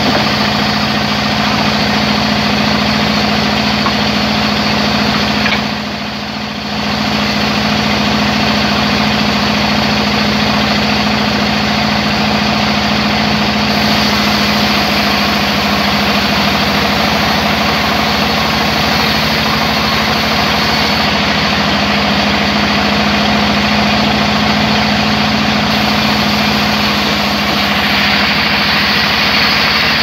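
Large sawmill band saw running with a steady hum while a log is fed through its blade. The sound dips briefly about six seconds in.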